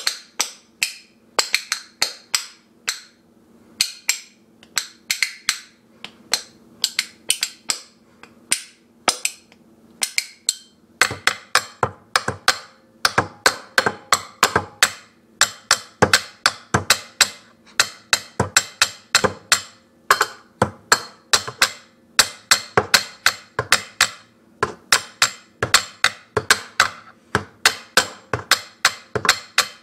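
Two metal spoons held back to back and played as a rhythm instrument, clacking together in quick rhythmic patterns. The clacks come in short groups with pauses for the first ten seconds or so, then turn into a faster, almost unbroken run.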